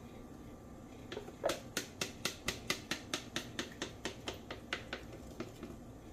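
Wooden spoon knocking and scraping against a plastic measuring cup to get thick coconut milk out, a quick run of sharp clacks about four or five a second that starts about a second in and stops near the end.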